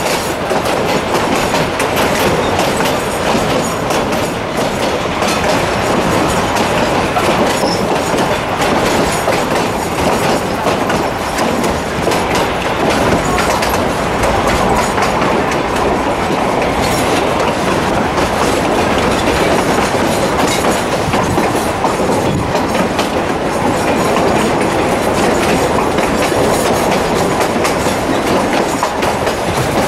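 Narrow-gauge passenger train running steadily, heard from aboard a coach: a continuous rumble with the wheels clattering over the track.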